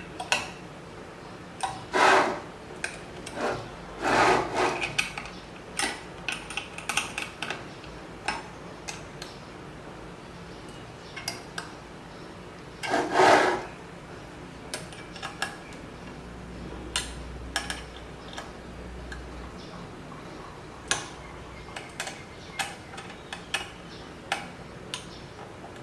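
Hand tools and metal CNC parts handled during assembly: scattered small clicks and metal clinks, with three louder scraping rubs about two, four and thirteen seconds in.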